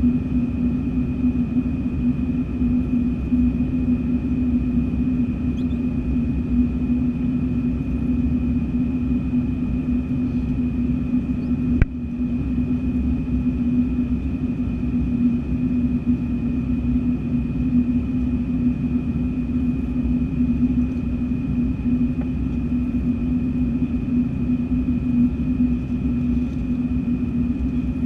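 Airbus A319-114 cabin noise at a window seat in flight: a steady drone from the airflow and the CFM56 turbofans, with a steady high whine over it. A single click comes about twelve seconds in.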